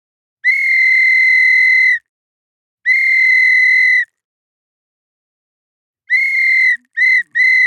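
Referee's whistle blown in five blasts, each a steady high-pitched tone: two long blasts of over a second each, then after a pause three short blasts in quick succession near the end.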